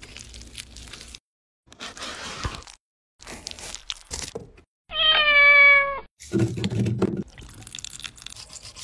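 A cat meows once, a single held call of about a second with a slightly falling pitch, about five seconds in, and it is the loudest sound here. Around it are short bursts of scraping and clinking from food being prepared, a brief low sound right after the meow, and near the end water trickling from a tap.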